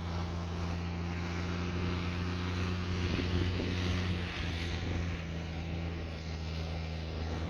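M35A2 truck's turbocharged multifuel diesel engine running steadily, its speed dropping slightly about four seconds in.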